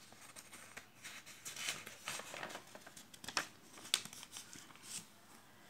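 Paper pages of a printed booklet being turned and handled: a series of faint, short rustles and crinkles.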